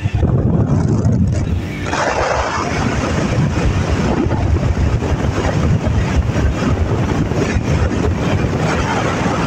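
Wind buffeting the microphone of a moving motorbike at highway speed, mixed with engine and tyre noise.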